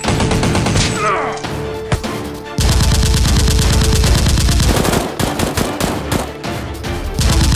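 Dubbed gunfire sound effects: rapid machine-gun bursts, with a long, loud burst starting about two and a half seconds in, over background music.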